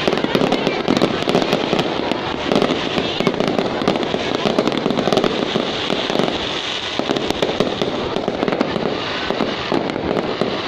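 Fireworks going off in a dense, continuous barrage: many rapid crackling pops and bangs overlapping without a break.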